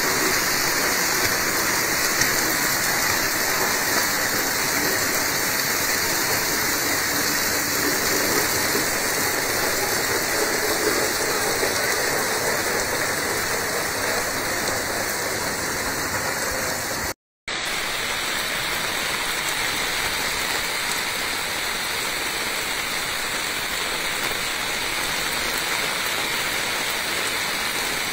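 Heavy rain pouring down, with floodwater running through the street: a steady hiss of water with no let-up. It is broken by a split-second gap of silence about two-thirds of the way through.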